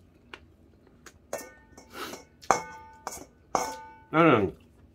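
A metal spoon scraping and clinking against a stainless steel mixing bowl while rice is scooped out. The bowl rings briefly three times after the sharper knocks.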